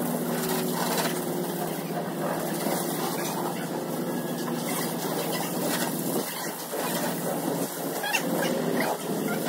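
A jet of water from a hose spray wand hitting a car's body and the wet concrete floor: a steady hissing splash, with a faint low hum underneath that comes and goes.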